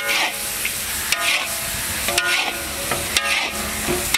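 Mutton sizzling as it fries in a large black wok, stirred with a metal spatula that scrapes and rings against the pan about once a second.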